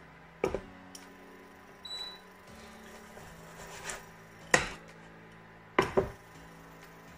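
Kitchen utensil knocking and clicking against a frying pan while a cooking pancake is checked: a handful of short sharp knocks, the loudest about four and a half seconds in and a quick double knock about six seconds in.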